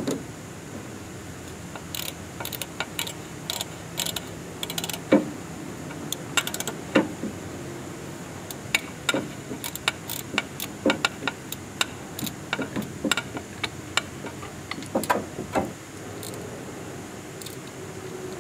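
Ratchet wrench with a socket extension clicking in short, irregular runs as bolts are tightened after a new gasket is fitted to cure an engine oil leak.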